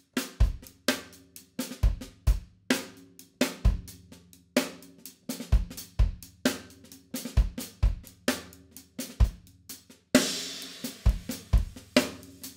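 An acoustic drum kit played in a steady groove: bass drum thumps, snare hits and hi-hat/cymbal strokes, with the drums' tones ringing between strikes. The bass drum is one the drummer finds sounds weird. Near the end a crash cymbal rings out and slowly fades.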